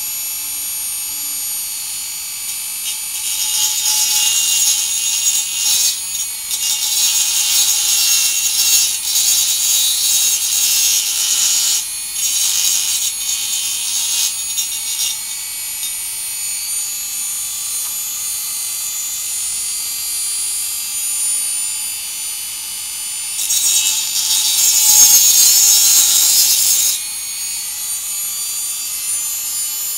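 Small Dremel-type rotary tool with a diamond cutting disc running at a steady high whine, grinding through a wetted glass DRO linear scale. The cutting is louder and harsher in a long spell from about three seconds in and again for a few seconds near the end, and the glass cuts cleanly rather than shattering.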